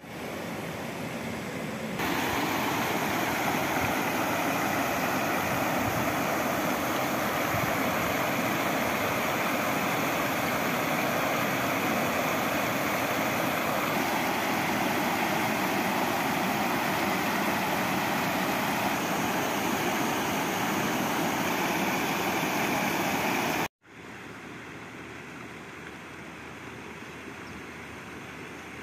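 Rain-swollen, muddy river water spilling over a low concrete weir and churning below it: a steady, loud rush of water that gets louder about two seconds in. Near the end it cuts off abruptly, giving way to a quieter steady hiss.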